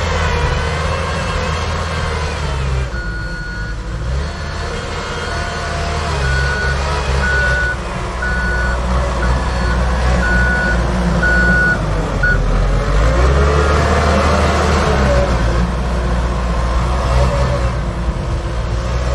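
Skid-steer loader's diesel engine running while it pushes snow, its reversing alarm beeping repeatedly from about three seconds in until about twelve seconds in. The engine pitch then rises and falls as the machine works.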